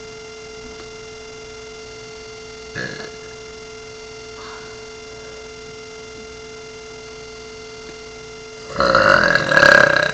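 Deliberately forced burps: a short one about three seconds in, a faint one soon after, then a long, loud burp near the end that breaks once in the middle. A steady electrical hum runs underneath.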